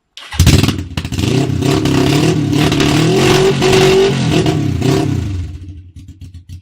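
Suzuki GS 500 E parallel-twin engine revved suddenly and held at high revs for about five seconds, very loud through an exhaust with its end silencer removed. Near the end it drops back to a pulsing idle.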